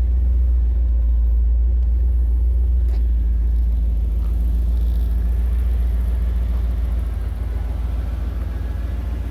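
1984 Pontiac Firebird Trans Am's 5.7-litre Tune-Port Injection V8 running steadily with a deep, low exhaust rumble. It eases off slightly about seven seconds in.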